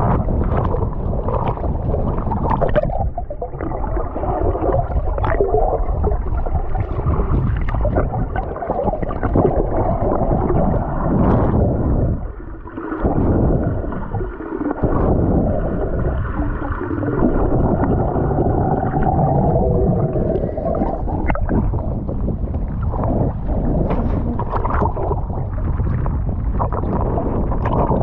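Muffled underwater rumble and gurgling of water moving around a submerged camera, with scattered short clicks and splashes. The level dips briefly about halfway through.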